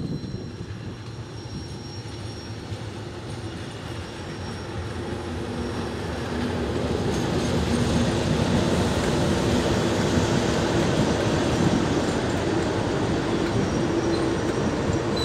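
Class 97/3 diesel locomotive 97304, a rebuilt Class 37 with an English Electric engine, running into the station with its test coaches. Its engine and wheels on the rails grow steadily louder as it draws alongside about 8 s in, then the coaches rumble past.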